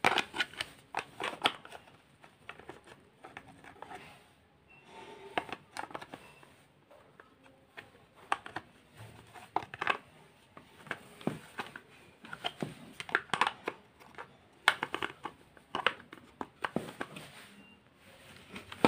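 Irregular clicks, knocks and plastic rattling as a vacuum cleaner motor and its plastic cover are handled and fitted together.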